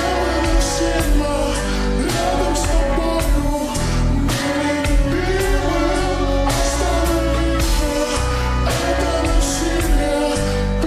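A pop song slowed down with heavy reverb: dense music with singing.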